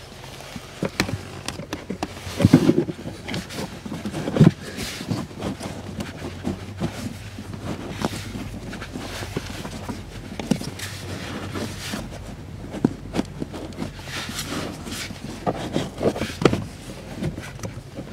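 Plastic-framed cabin air filter being slid and pushed by hand into its plastic housing, with irregular scraping, rustling and sharp plastic clicks and knocks. The loudest knocks come about two and a half and four and a half seconds in.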